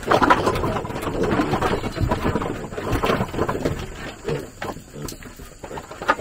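Pigs grunting in short, irregular calls.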